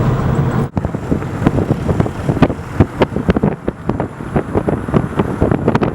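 Car in motion: a steady hum, then after a short break many irregular knocks and rattles over road and wind noise, with wind on the microphone.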